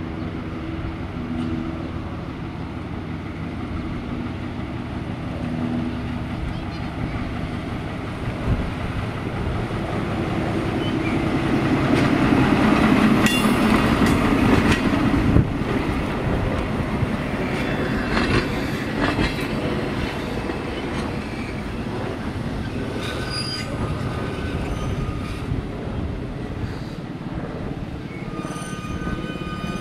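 SNCF X 3800 'Picasso' diesel railcar running on the rails, its engine hum growing louder as it approaches and passes close by, with a few sharp clicks from the wheels in the middle. High squealing from the running gear comes in twice in the second half as it slows into the station.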